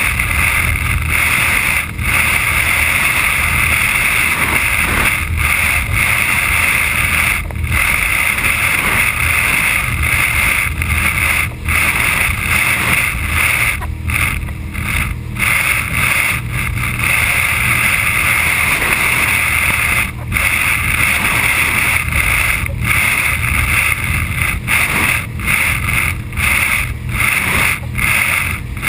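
Steady noise of a boat under way, a continuous rush with a low rumble beneath. It is cut by many brief dropouts.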